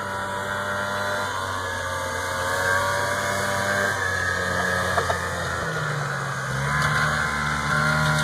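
Snowmobile engine running, its note shifting in pitch about two-thirds of the way through and growing louder near the end.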